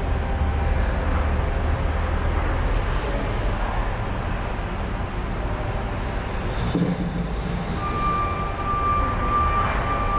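Ice-arena room sound: a steady low hum. A brief dull thud comes about seven seconds in, and a thin steady tone sets in about eight seconds in.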